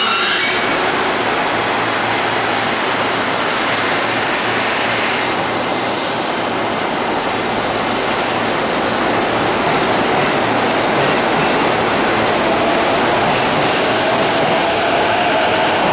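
JR East E233-1000 series electric train standing at the platform and then pulling away, with a steady rushing noise. From about eleven seconds in, a faint whine starts to rise in pitch as the train gathers speed.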